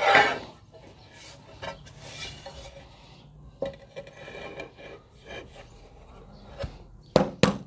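Marble floor tiles scraping and clinking: a loud scrape at the start as a tile is drawn off the stack, then faint scrapes and clicks as it is set and slid into place on the mortar bed, with two sharp knocks near the end.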